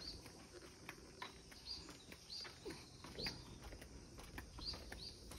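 Swallows giving short, high alarm chirps, about one a second, as they threaten a cat.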